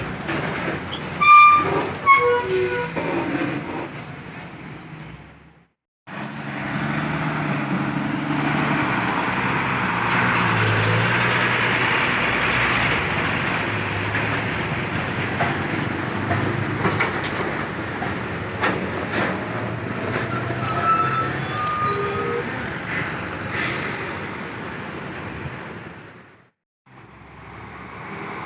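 Trailer truck on the road: its horn gives two short, loud blasts about a second or two in, then engine and tyre noise runs steadily, with a brief pitched tone around twenty seconds in. The sound cuts to silence twice, a few seconds in and near the end.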